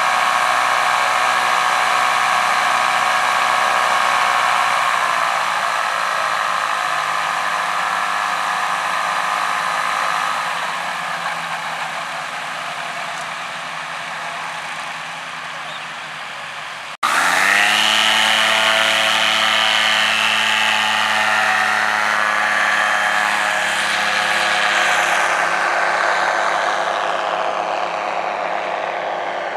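Microlight trike engines and propellers running on the ground at taxi power. After a cut about halfway through, one trike's engine is much louder at high power for takeoff, and its note slowly drops as it climbs away.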